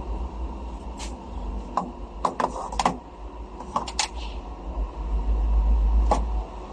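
Scattered sharp metallic clicks and clinks of hand tools and small engine parts being handled, about nine in all, over a steady low rumble that swells about five seconds in.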